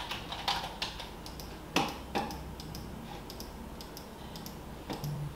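Irregular sharp clicks and taps, close together in the first two seconds with two louder knocks about two seconds in, then sparser. Background music comes in near the end.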